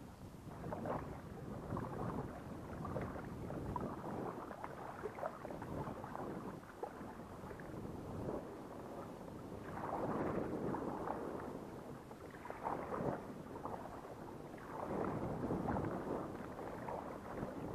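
Water sloshing and splashing around a fishing kayak's hull as it is paddled, in uneven swells every couple of seconds, with some wind on the microphone.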